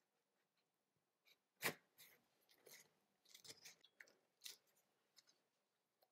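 Knife cutting through an avocado's skin and flesh around the pit, then the halves twisted apart: a sharp click about a second and a half in, followed by soft crackling and scraping, with another sharp tick about two seconds later.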